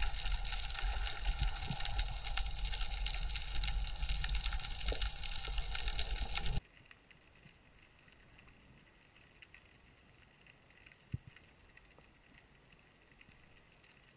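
Underwater camera audio: a loud, steady rush of water over the camera housing as the diver moves. About halfway through it cuts off suddenly to a much quieter underwater hiss with faint scattered ticks and one sharper click.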